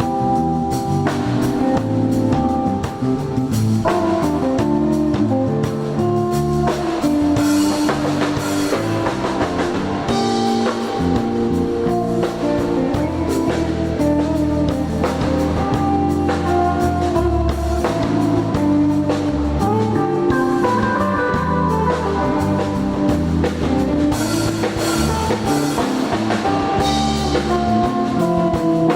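Instrumental band music with guitar, bass and drum kit playing a steady groove.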